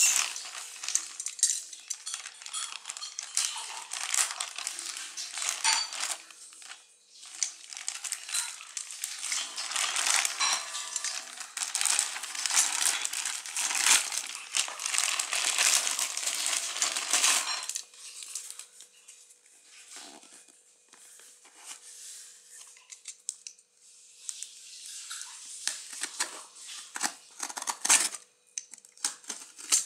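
Plastic courier mailer crinkling and rustling as it is handled and cut open, for about the first eighteen seconds. Then quieter scrapes and clicks of a box cutter slicing the packing tape on a cardboard box.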